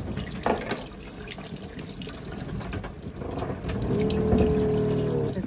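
Water running from a tap into a stainless-steel sink, splashing over squid being rinsed by hand. A bit over three seconds in, a steady hum joins beneath the running water.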